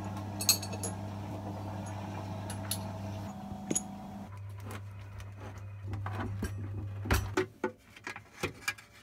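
Scattered small metal clicks and clinks of bolts and tools being handled, over a steady low hum.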